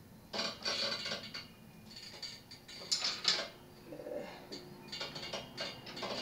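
Irregular metallic clicking and rattling of a mountain bike's rear wheel and axle nut being worked with a wrench.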